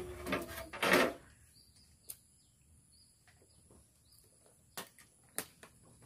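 Plastic washing-machine control panel and timer parts being handled: a short scraping rustle about a second in, then a few light clicks and taps.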